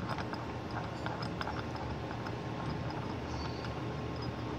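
Faint scattered clicks and light taps of small objects being picked up and handled, over a steady low hum with a faint constant high tone.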